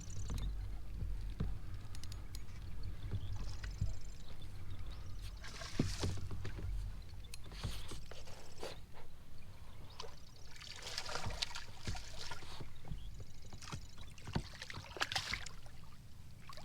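Water splashing and sloshing beside a kayak as a hooked redfish fights on the line, in several bursts, the strongest about eleven seconds in, over a steady low rumble.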